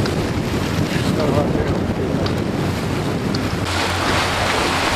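Strong wind buffeting the microphone over choppy open water, a steady rushing noise with the wash of waves beneath it.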